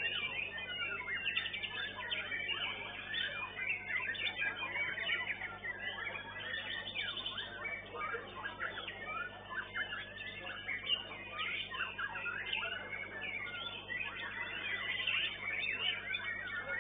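White-rumped shama (murai batu) singing in a dense, continuous run of rapid chirps and whistled phrases, with other contest birds singing over one another.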